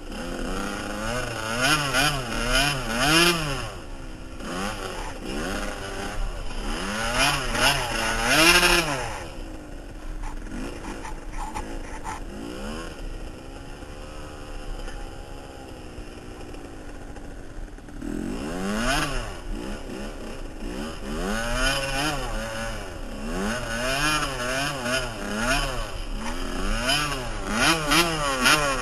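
Suzuki RM small two-stroke dirt bike engine revving up and down again and again as it is ridden in snow. It settles to a steadier, lower-revving run for several seconds in the middle, then revs hard again.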